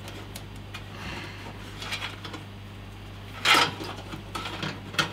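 Corsair RM750x power supply being slid into the power-supply bay of a PC case: light scraping and clicks of the unit against the case, with one loud knock-like scrape about three and a half seconds in and a smaller click near the end.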